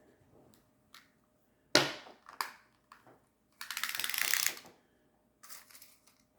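Retractable tape measure being tested after repair: a sharp clack about two seconds in, then about a second of fast rattling as the blade runs through the case, with a fainter rattle near the end.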